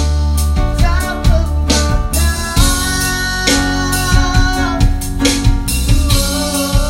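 A band playing: drum kit with regular hits, a strong bass line, guitar, and a sustained melodic lead line that bends in pitch.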